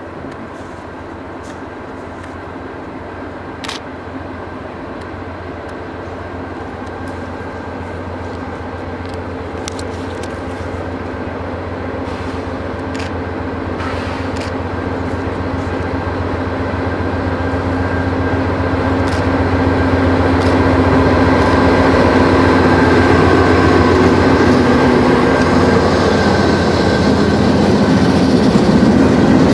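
Norfolk Southern diesel locomotives pulling an empty coal train, their engines running with a steady drone that grows louder over about twenty seconds as they approach, then holds loud as they pass close by.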